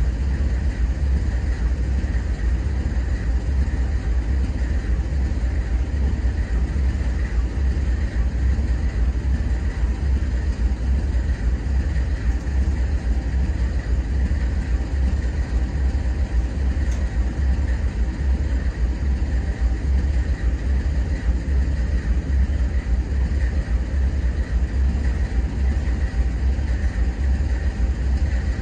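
Freight train of empty intermodal well cars rolling past close by: a steady, loud rumble of steel wheels on the rails, strongest in the low range.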